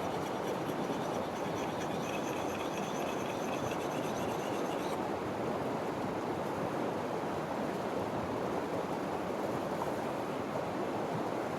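Creek water running steadily. A faint high trill sounds over it for the first five seconds or so, then stops.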